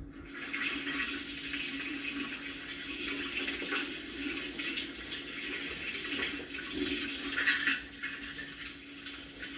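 Kitchen sink tap turned on and running, water splashing steadily into the sink during hand dishwashing, with a brief louder splash near the end.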